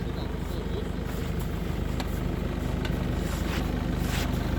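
Off-road vehicle engine idling steadily, with a few faint clicks over it.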